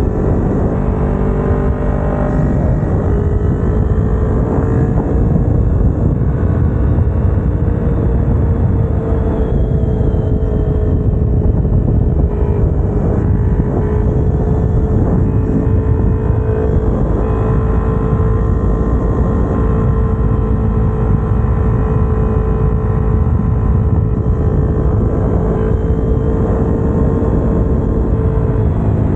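Kawasaki Ninja 250R's parallel-twin engine running at a steady cruising pitch, heard from on the bike with wind and road rush underneath. The engine note shifts near the end.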